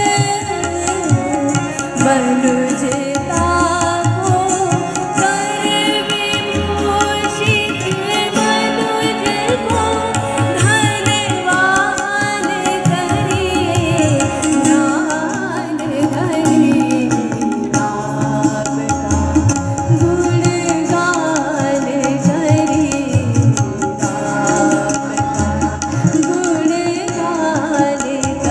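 A woman singing with harmonium and tabla accompaniment: a wavering sung line over the harmonium's held chords, with regular low tabla strokes.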